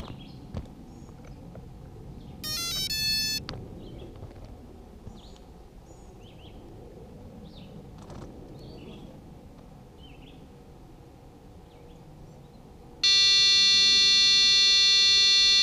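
3DR Iris+ quadcopter's flight controller beeping: a quick run of stepped electronic beeps about two and a half seconds in, then a loud, steady long tone for the last few seconds, the tone that signals the drone arming. Faint bird chirps underneath.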